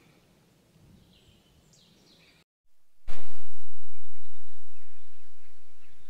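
A few faint bird calls over a quiet open-air background. About halfway through, the sound cuts out for a moment, then comes back as a much louder, even outdoor noise that slowly fades.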